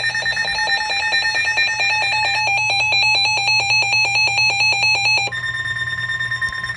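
Emergency Alert System attention tones: rapidly pulsing electronic beeping that shifts to a different set of pitches about two and a half seconds in, then gives way to a steady tone for the last second and a half, ahead of the spoken warning.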